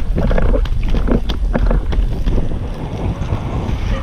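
Wind buffeting the microphone of a pole-mounted camera, over the rumble of inline skate wheels rolling on rough asphalt, with scattered clicks from the wheels.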